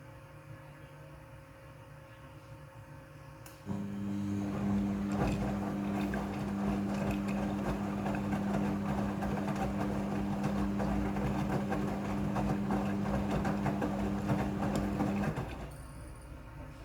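Midea front-loading washing machine running: about four seconds in, a steady motor hum starts with water and churning noise over it, runs for about eleven seconds, then stops.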